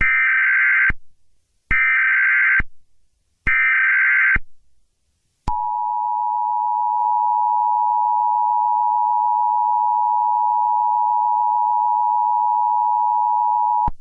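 Emergency Alert System tones: three bursts of SAME digital header data, about a second each with short gaps between them, then the steady two-tone EAS attention signal held for about eight and a half seconds. Together these tones mark the start of an emergency alert broadcast.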